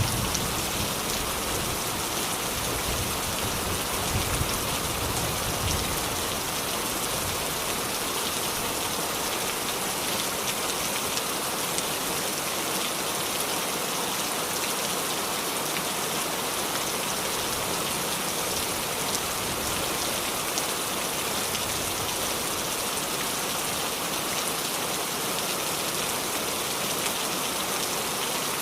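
Heavy rain pouring steadily onto surfaces: a dense, even hiss of drops. A low rumble dies away over the first few seconds.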